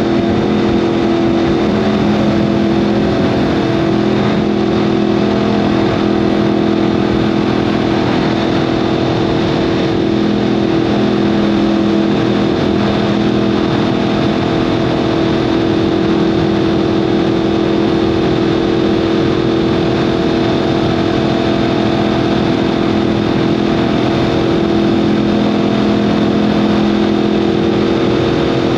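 2015 Yamaha R1M's crossplane inline-four engine running through an Akrapovic exhaust at a steady engine speed, its pitch drifting only slightly, over a steady rushing noise.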